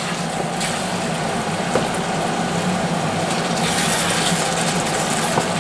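Chicken and vegetables in a beer and tomato sauce sizzling in a frying pan as a spoon stirs them, over the steady hum of a kitchen extractor hood fan.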